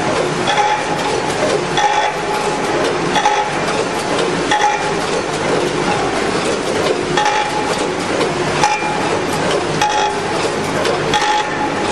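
Popcorn weighing and packaging machine running: a steady mechanical din with a metallic clack about every second and a quarter, as the multihead weigher's stainless hopper gates snap open and shut.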